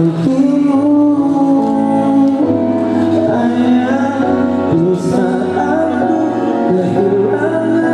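Music with singing: long sustained sung notes over instrumental accompaniment, running steadily.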